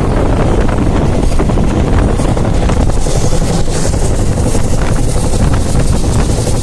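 Wind buffeting the microphone of a phone held at the window of a train running at full speed, over the train's steady low rumble.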